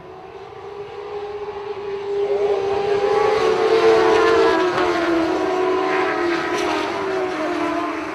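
A pack of shortcar race cars, small cars running motorcycle engines, racing past. Several engines are heard at once at different pitches, their revs rising and falling. They grow louder over the first few seconds, are loudest about four seconds in, and stay loud after that.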